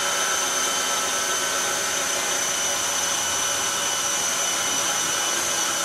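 KitchenAid Classic tilt-head stand mixer running steadily at low speed, its beater mixing flour into a butter, sugar and egg batter. The motor hum is even, with a steady high whine over it.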